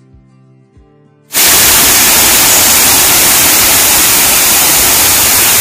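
Soft guitar music cuts off about a second in, and the steady loud rushing roar of a waterfall takes over.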